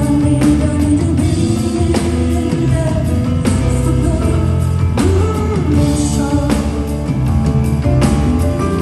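Live rock song played by a full band: a woman singing over sustained keyboard-like notes, a heavy bass line and a steady drum beat.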